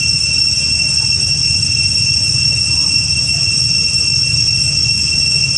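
Steady, high-pitched insect chorus holding one even drone over a steady low rumble.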